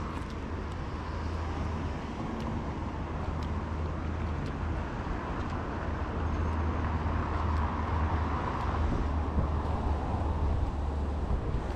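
Steady low rumble of distant city road traffic, with no clear single event standing out.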